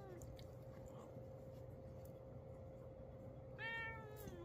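Quiet room with a faint steady hum. About three and a half seconds in, a cat gives one short, soft meow that falls slightly in pitch.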